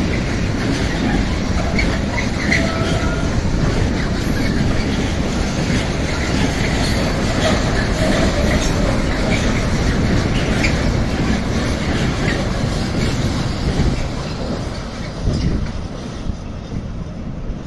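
Container freight wagons rolling past, a loud, steady noise of wheels on rails with a couple of brief squeals a few seconds in; the noise thins out near the end as the last wagons pull away.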